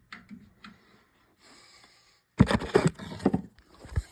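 Handling of a Jorgensen clamp and a PEX crimping tool: a few light clicks, a short pause, then a burst of clattering knocks and scrapes about halfway through, ending in a dull thump.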